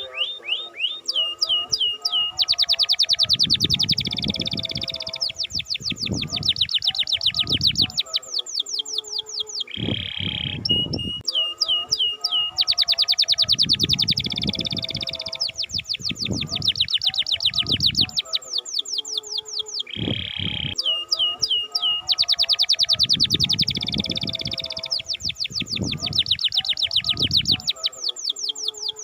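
Domestic canary singing long trills of fast, evenly repeated sweeping notes, switching between phrases every second or two; the same song sequence comes round again about every ten seconds.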